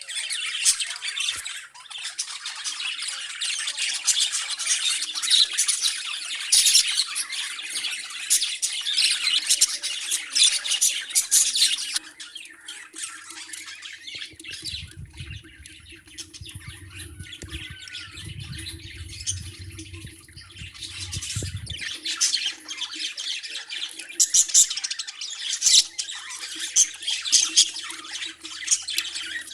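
Several pet birds chirping and squawking in a rapid, overlapping chatter, busy at first, thinning out in the middle and picking up again near the end. A low rumble sounds under the birds in the middle stretch.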